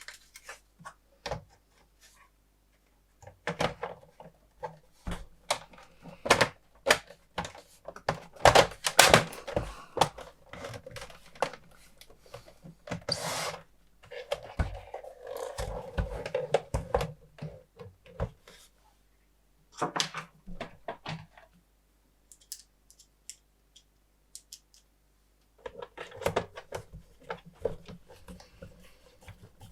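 Irregular clicks, knocks and clatter of small plastic and metal parts being handled and fitted on a Tektronix TDS 210 oscilloscope, with a short scrape partway through and a pause of a few seconds near the end.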